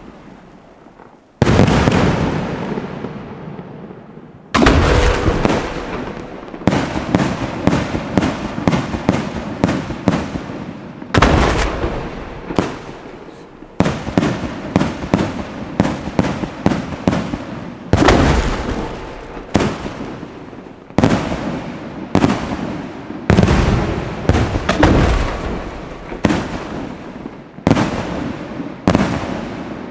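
Aerial fireworks going off in quick succession: sharp bangs, each followed by an echoing rumble and crackle, about one every second or two after a short lull at the start.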